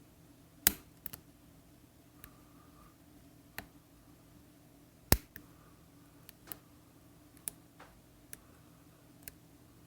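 Lock pick and tension wrench working the wafers of an Illinois DUO triple-bitted wafer padlock: scattered small clicks and ticks at an irregular pace, with two louder clicks, one about a second in and one about five seconds in.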